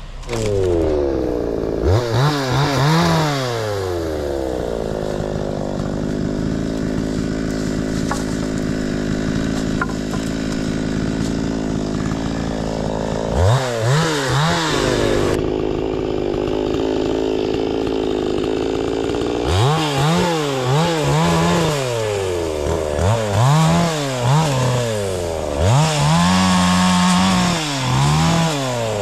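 Two-stroke chainsaw revving up and down over and over, with two stretches of several seconds at steady high revs.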